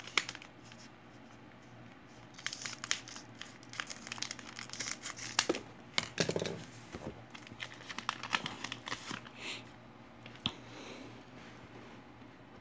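A trading-card pack wrapper being torn open and crinkled, a run of crackling and tearing from about two seconds in until near ten seconds, then quieter handling of the cards.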